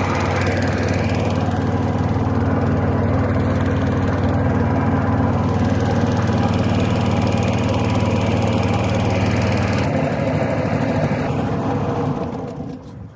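Fishing boat's engine running steadily at a constant speed, then dying away near the end.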